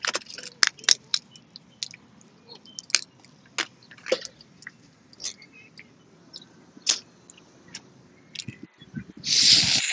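Boiled crawfish being peeled and eaten: shells cracking and snapping under gloved fingers in scattered sharp clicks, with chewing. A louder noisy burst, just under a second long, comes near the end.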